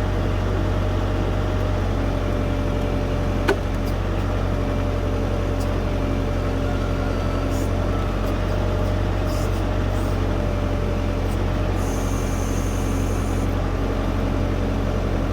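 LS U5030 tractor's diesel engine running steadily at low RPM while working its backhoe, still warming up, with a steady whine over the engine note. A single sharp click about three and a half seconds in, and a brief hiss near the end.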